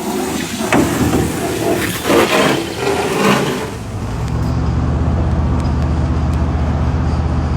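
1985 Yamaha 50 hp two-stroke outboard motor running. For the first few seconds the sound is uneven, with several louder swells of rushing noise; from about four seconds in it settles into a steady drone.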